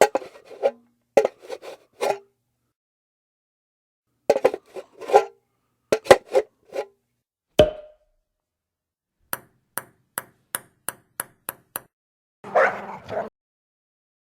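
A string of short sound effects standing in for makeup steps: several quick bursts, a single ping about halfway through, then a rapid run of about ten sharp clicks at roughly four a second, and a short noisy burst near the end.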